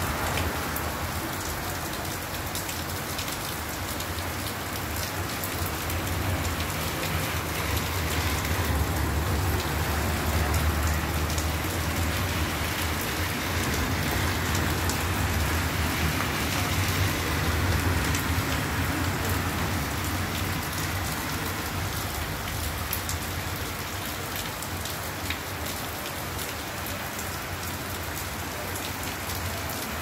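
Heavy rain pouring onto gravel, concrete and a waterlogged road: a steady, dense hiss of drops. A low rumble swells under it through the middle and fades again.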